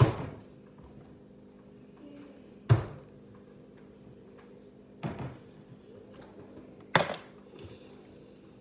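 Kitchen cabinet door knocking open and shut and a plate set down on a stone countertop: four sharp knocks about two seconds apart, the last the brightest.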